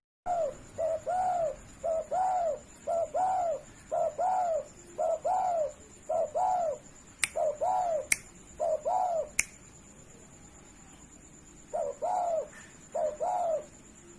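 Spotted dove (derkuku) cooing: a long series of rising-and-falling coo notes in quick groups, then a pause of about two seconds and two more groups near the end. Three sharp clicks sound in the middle of the run.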